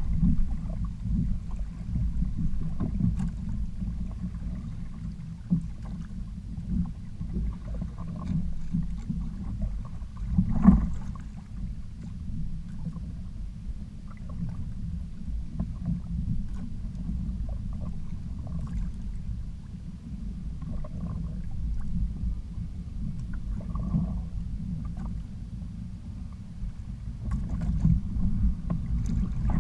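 Low, dull rumble of water and wind around a sailing kayak under way at sea, rising and falling unevenly, with one brief louder slap about eleven seconds in.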